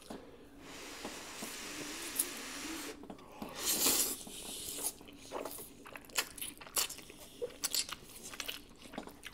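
Close-miked eating of a large mouthful of spicy instant fire noodles: a long noisy slurp drawing the noodles in, at its loudest just before four seconds in, followed by wet chewing with many short lip smacks and clicks.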